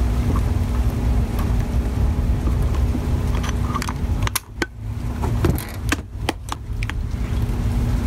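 Handling noise from an air conditioner condenser fan motor being turned in the hands and reassembled. Several sharp metal clicks come in the second half, over a low rumble and a faint steady hum.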